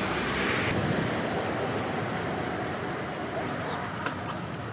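Steady hiss of rain and wet-road traffic, slowly fading, with a few faint ticks near the end.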